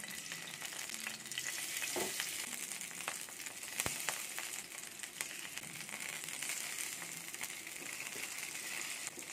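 Masala-coated kizhangan (sand whiting) fish sizzling and crackling in hot oil as they shallow-fry in a pan, a steady spitting hiss with small pops throughout. A single sharp click stands out about four seconds in.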